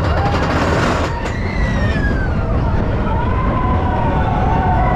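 Vekoma roller coaster train running along its track: a loud rush of wind and a low rumble from the wheels, with long wavering tones over it that fall in pitch after about a second and a half and then hold lower to the end.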